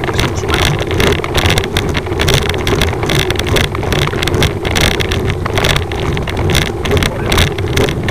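Wind and road noise buffeting the microphone of a camera carried by a road cyclist riding in a group: a steady low rumble with rapid flutters throughout.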